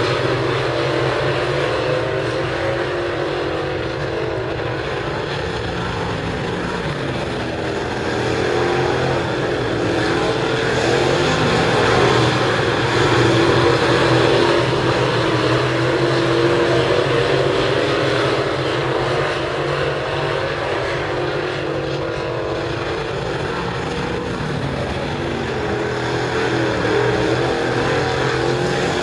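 Dirt late model race cars' V8 engines running at speed around a dirt oval, a continuous engine noise that swells as the cars pass, most strongly about twelve seconds in and again near the end.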